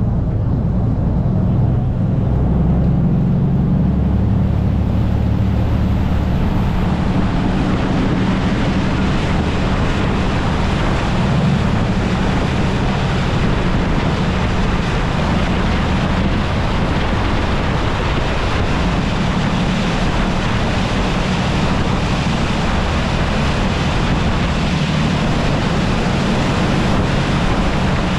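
Saen Saep canal passenger boat underway: its diesel engine runs steadily with a low hum, under the loud rush of water and wind on the microphone.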